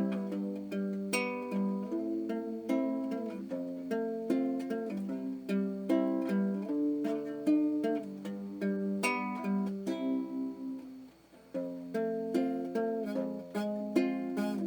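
Background music: a ukulele-style plucked-string melody in quick short notes, with a brief pause about eleven seconds in.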